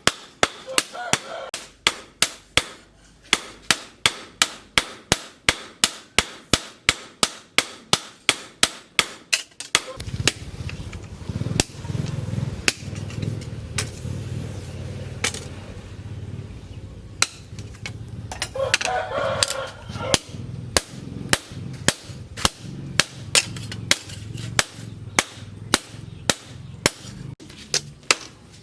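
Hammer blows on a steel blade at the anvil, about three a second, each a sharp ring. About ten seconds in, a low steady hum starts up under the hammering.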